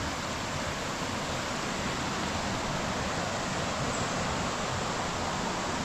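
Steady rushing of a river or stream, an even water noise with no let-up.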